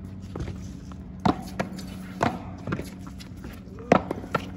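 Rally of a paddle striking a ball and the ball smacking off a concrete wall: a series of sharp knocks about a second apart.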